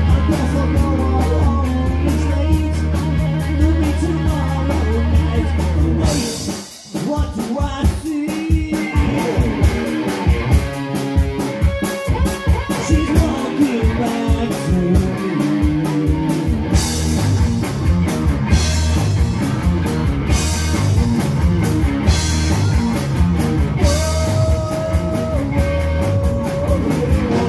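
Live rock band playing: electric guitar through a Marshall amplifier, bass guitar and drum kit, with vocals. The sound drops out briefly about seven seconds in, the drums come back in with repeated cymbal crashes, and a held guitar note rings out before the song stops suddenly at the very end.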